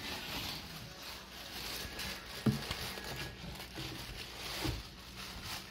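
White wrapping around a pair of children's shoes rustling and crinkling as a child pulls it out of the shoe box by hand, with a couple of soft thumps against the box.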